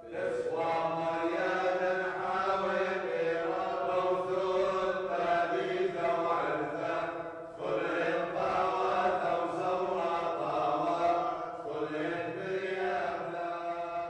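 Chanted vocal music: a single voice sings long, held notes that move slowly in pitch, breaking off briefly about halfway through.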